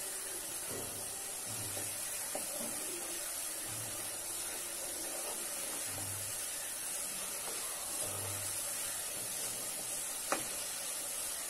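Onion, tomato and spice masala with green chillies sizzling in an aluminium pot as it is fried down with a little water, stirred with a wooden spatula. There are a few soft thuds from the stirring, and a sharp click about ten seconds in.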